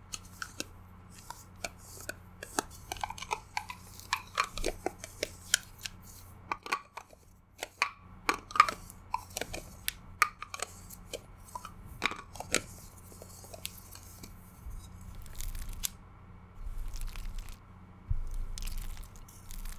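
Long false fingernails tapping and scratching on a metal cream jar close to the microphone: a quick, irregular run of sharp clicks and ticks. After about two thirds of the way through, this gives way to softer scraping and smearing as cream is scooped from the open jar.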